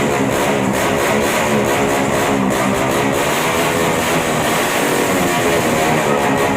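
Motorcycle engine running steadily through a loud aftermarket exhaust, with guitar-backed music playing over it.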